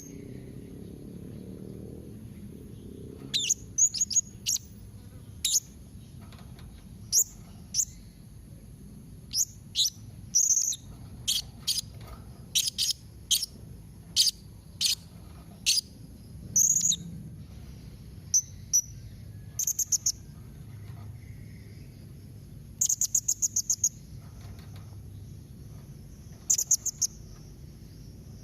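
Blue-crowned hanging parrots (serindit) giving sharp, very high-pitched chirping calls, some single and some in quick runs, with rapid bursts of notes in the last few seconds. A faint steady high tone, like insects, runs underneath.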